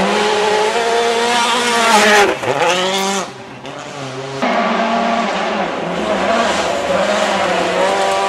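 2011 World Rally Car 1.6-litre turbocharged four-cylinder engines at full throttle on a gravel stage, the pitch climbing and dropping with gear changes as the cars pass. The sound drops away a little after three seconds, then comes back abruptly about a second later with the next car.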